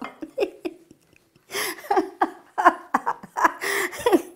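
Elderly woman laughing in a run of short bursts, breathy between them, starting about a second and a half in.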